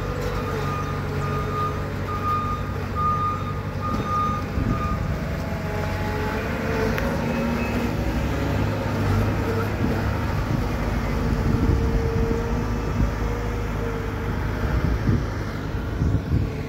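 Caterpillar 914K wheel loader's diesel engine running as the loader drives, with a reversing alarm beeping steadily for the first five seconds or so.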